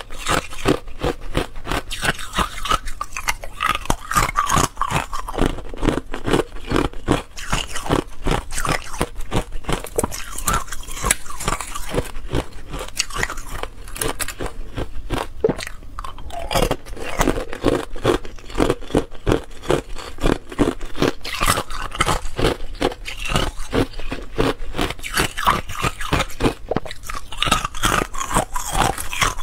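Thin clear ice cubes being bitten and chewed, a fast, unbroken run of crisp crunches and cracks.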